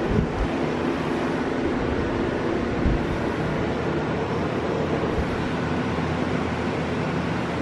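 Portable air conditioner running with a steady hum, and a couple of soft knocks just after the start and about three seconds in.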